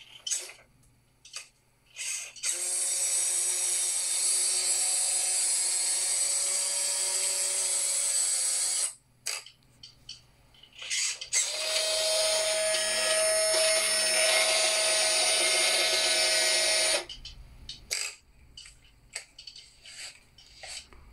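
Electric motor and gears of a Tamiya Mammoth Dump Truck RC model's dump mechanism whining steadily for about six seconds as the bed tips up, then again, at a higher pitch, for about five seconds as it comes back down. Short clicks come before, between and after the two runs.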